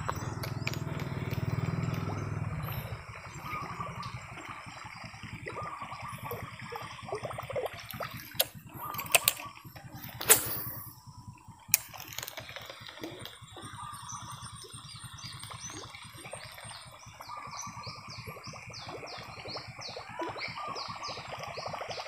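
Fishing rod and reel being handled on a river bank. A low rumble in the first few seconds gives way to a handful of sharp clicks and knocks around the middle, and a repeated high chirping comes in near the end.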